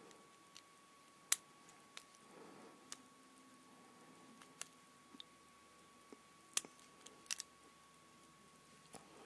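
Faint, scattered clicks of a lock pick working the pins of a Brinks five-pin deadbolt cylinder fitted with spool security pins, a sharp click every second or two with a few closer together.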